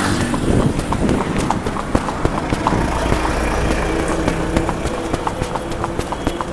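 A horse's hooves striking asphalt in a quick, even clip-clop rhythm as it goes at a brisk gait. A motor vehicle's engine rumbles past in the middle.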